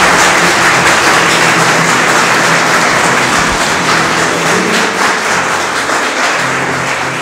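Audience applauding: dense clapping that slowly fades.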